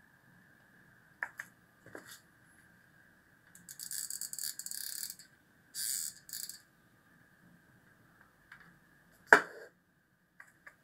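Small brass cogs and a hot glue gun being handled while cogs are glued onto a plastic crystal chamber: scattered light clicks, two short rattling bursts around the middle, and one sharper click near the end.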